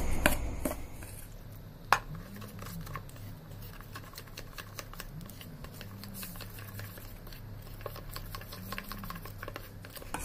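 A spoon stirs a thickening batter of ground chocolate biscuits and milk in a stainless steel bowl, with soft wet scraping and scattered clicks of the spoon against the metal. There is one sharp knock about two seconds in.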